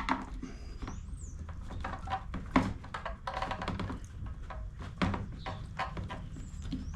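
Irregular clicks and knocks of a screwdriver and hands prying at a rubber fuel-line grommet on a backpack leaf blower's plastic body, about a dozen sharp taps over the few seconds.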